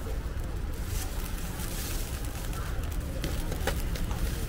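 A steady low rumble with faint crackling, and a few light clicks and plastic rustles from gloved hands working hotteok dough in a plastic-lined bowl, near the end.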